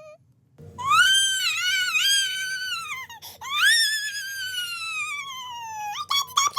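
High-pitched cartoon-style crying voice: after a brief pause, two long wavering wails that each slide down in pitch, then short broken sobs near the end.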